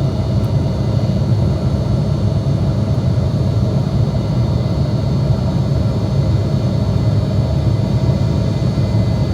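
Steady roar inside the cabin of an Embraer E175 jet, its two turbofan engines and the airflow running, as the airliner climbs after takeoff. A deep rumble carries most of it, with a few faint steady whines above.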